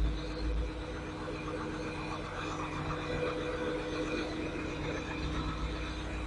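Diesel engine of a Kato SR-250 25-tonne rough-terrain crane idling steadily.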